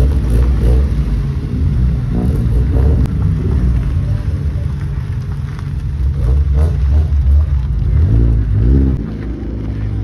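Car engines and exhausts rumbling as cars drive slowly past one after another, with some revving. The rumble is loudest from about six to nine seconds in, then drops off.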